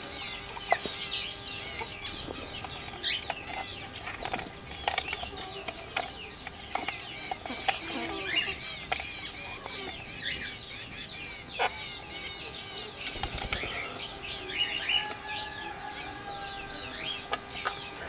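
Rose-ringed parakeets chirping in fast, high-pitched chatter, with chickens clucking in the background and occasional sharp taps.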